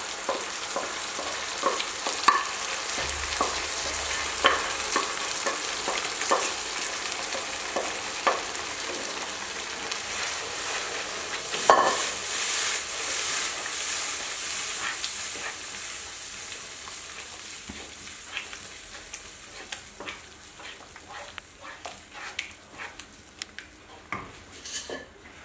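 Brinjal masala sizzling in a nonstick kadai as cooked toor dal is poured in, then a wooden spatula stirring, with repeated knocks and scrapes against the pan. The sizzle dies down toward the end as the dal mixes in.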